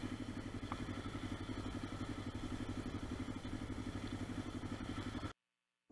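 Kawasaki KLE400 parallel-twin engine idling with a steady, even beat, cutting off suddenly near the end.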